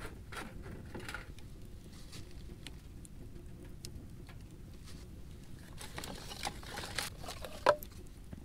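Wood fire crackling in the open firebox of a titanium tent stove: scattered small pops and ticks, with one sharper, louder pop near the end.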